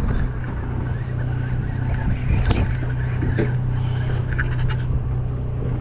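A boat's engine running with a steady low drone, with a few short knocks and scrapes.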